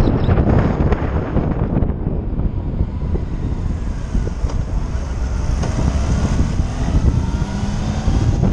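Motorcycle riding through city traffic, with wind buffeting the microphone throughout. In the second half a faint engine note rises as the bike picks up speed.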